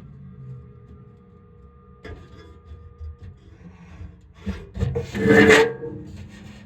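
Kansas City Southern train passing: a steady low rumble, with a louder burst about five seconds in.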